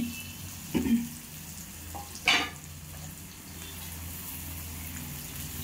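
Chopped onions sizzling in hot oil in a nonstick pan as they are stirred with a spoon. Two louder knocks of the spoon against the pan come about a second in and just after two seconds.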